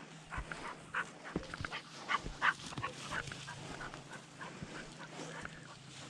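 Pointer dog whining and yipping in short, high calls that come in quick runs, loudest about two seconds in.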